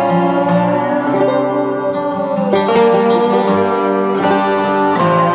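Background music on plucked string instruments, with some notes bending in pitch.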